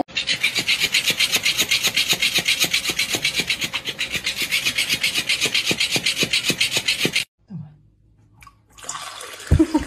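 Toy fish rubbing against a bedsheet in a rapid, very even rasping rhythm, about nine strokes a second, that stops abruptly about seven seconds in. Near the end there is a single knock.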